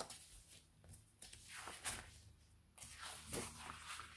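Faint rustling of stiff, dried tea-dyed paper sheets being handled, with several short rustles as sheets are lifted, slid and laid down.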